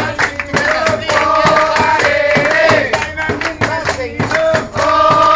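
A group of men singing together, with a steady beat struck on a hand-held frame drum and hand clapping.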